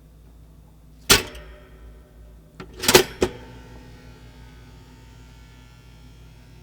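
A kitchen appliance humming steadily, with one sharp click about a second in and a quick cluster of clicks around three seconds in.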